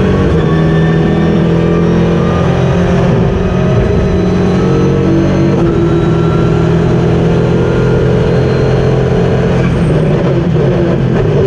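KTM X-Bow GT4 race car's turbocharged four-cylinder engine heard from inside the cockpit, running hard at racing speed with its pitch rising and falling a little, over steady road and wind noise.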